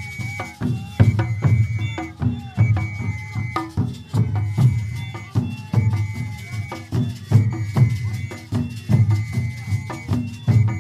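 A group of large double-headed drums, carried on shoulder straps, beating a steady deep rhythm about twice a second, with short high held tones sounding over the beat.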